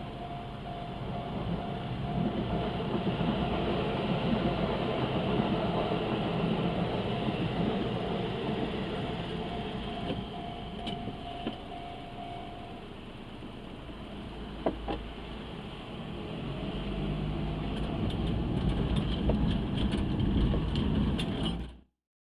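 Shin-Keisei 80000 series electric train running through a level crossing, a steady rumble that swells twice. A steady high tone stops just past halfway. Quick wheel clicks over the rail joints come near the end, then the sound cuts off abruptly.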